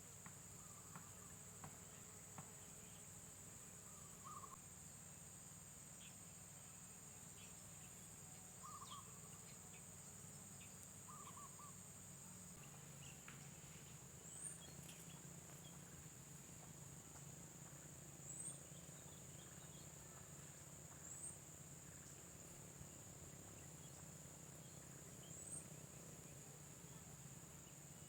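Faint outdoor ambience: a steady high-pitched insect drone, with a few short, faint bird calls scattered through it, including four quick upward chirps in the second half.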